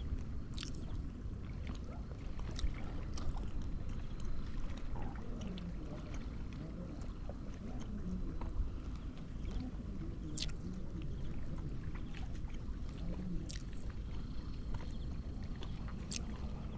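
Small boat on open water: a steady low rumble with a few sharp clicks and light knocks.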